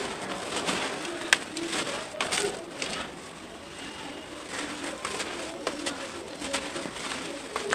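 Dry red dirt clumps being crushed by hand, crackling and snapping, with the powdery soil pouring back into the loose dirt in a plastic tub; the sharpest crackles come at about one and two seconds in. A bird coos repeatedly in the background.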